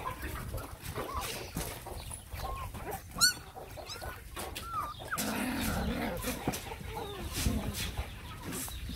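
A litter of puppies whimpering: short squeaky whines that rise and fall, with a sharp louder squeak about three seconds in.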